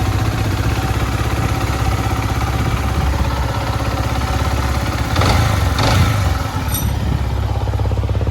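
Yamaha MT-15's single-cylinder engine idling steadily after a tappet and VVA rocker clearance adjustment, without the tick-tick rocker noise, and rising briefly twice a little past halfway. Its exhaust note is a bit boomy from a small cut made in the silencer.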